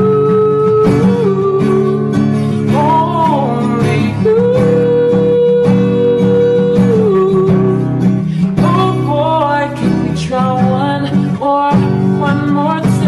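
Pop song with acoustic guitar and a sung melody line holding long notes.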